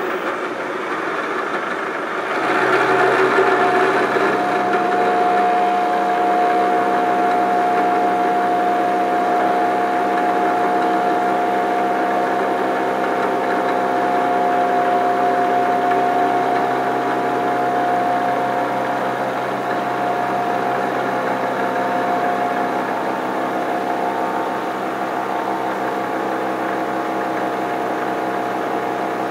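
Vertical milling machine face-milling a metal block with a rose cutter: a steady machine drone with several held tones, louder from about two and a half seconds in.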